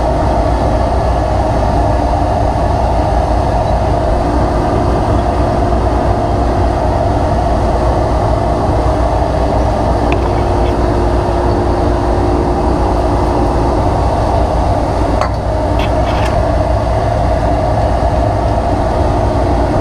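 Steady drone of a running shop machine, with a few faint metallic clicks from work inside the saw.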